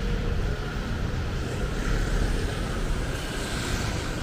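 Street traffic on a wet road: steady road noise from passing cars and motorbikes, swelling as a vehicle goes by about two seconds in.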